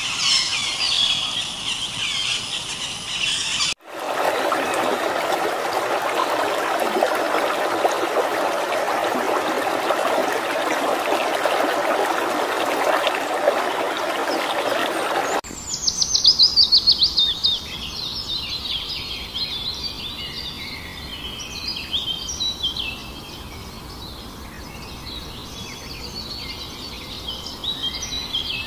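Wild birds singing and chirping, broken by a steady rushing noise for about eleven seconds; the birdsong returns with a fast falling trill and carries on with scattered calls.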